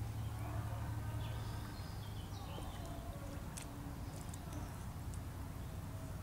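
Faint outdoor ambience: a steady low hum with scattered short bird chirps and a few small clicks.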